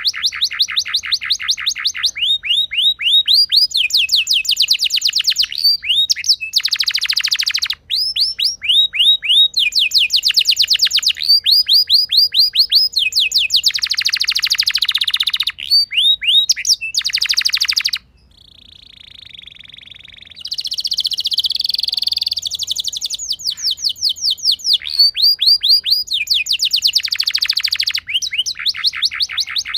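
Domestic canary singing a long, continuous rolling song: fast trills of rapidly repeated notes, switching from one phrase to the next with hardly a break, and a brief softer, lower passage just past the middle.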